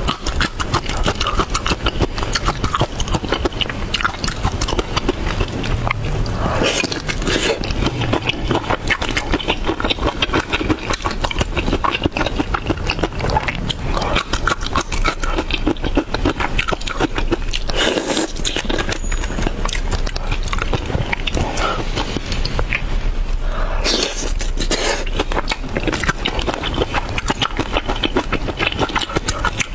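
Close-miked eating sounds: chewing, dense mouth clicks and smacks as shrimp and quail eggs in chili sauce are eaten.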